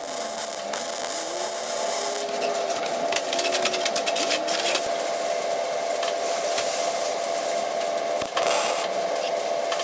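Welding on steel bolts: a steady hiss with a steady hum under it. Crackling comes in dense bursts about three to four and a half seconds in and again near the end.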